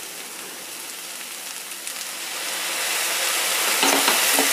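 Vegetables frying in oil in a steel kadai: a steady sizzling hiss that grows louder from about halfway through as a steel ladle starts stirring, with the ladle scraping and knocking against the pan near the end.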